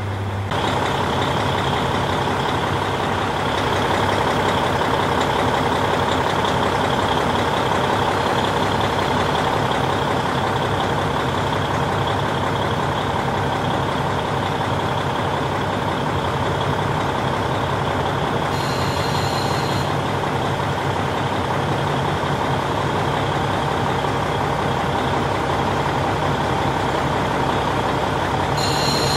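KiHa 40 diesel railcar's engine idling steadily at a constant pitch. Two brief high electronic beeps sound, about two-thirds of the way through and again near the end.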